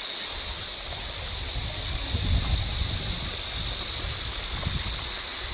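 Mountain stream water rushing steadily, a constant hiss, with irregular low rumbling on the microphone.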